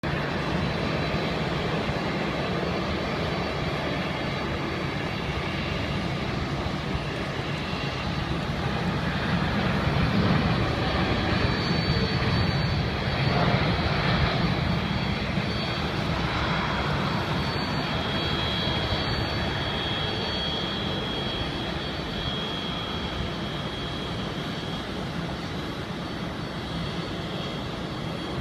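Jet airliner taking off, its engine noise swelling to a peak about halfway through and then slowly fading, with a faint high whine near the end.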